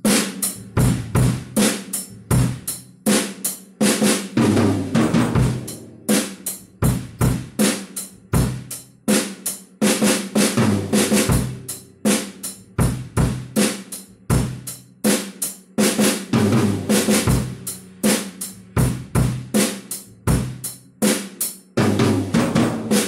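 Acoustic drum kit playing a steady rock beat. About every six seconds it breaks into a rock fill of eighth and sixteenth notes moved from the snare across tom 1 and tom 2.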